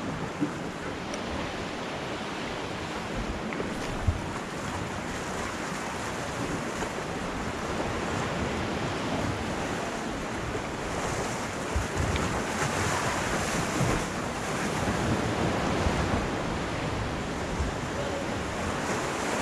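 Sea swell washing against shoreline rocks, a steady wash with wind buffeting the microphone now and then. A single sharp tap about four seconds in.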